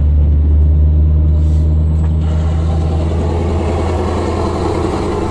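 Scania R620's V8 diesel pulling hard under acceleration through a free-flowing open exhaust, heard from inside the cab: a loud, deep, steady drone that eases off a little about three seconds in.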